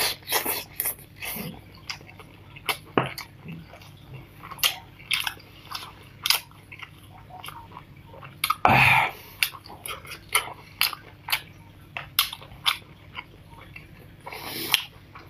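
Close-up mouth sounds of a person eating spicy snails: wet chewing, smacking and sucking in short irregular clicks, with one louder, longer sucking noise about nine seconds in.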